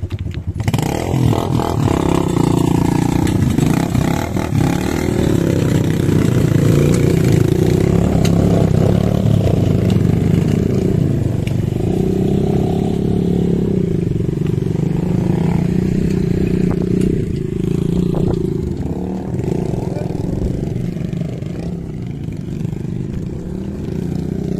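Motorcycle engines running and revving on a gravel trail, the pitch wavering up and down.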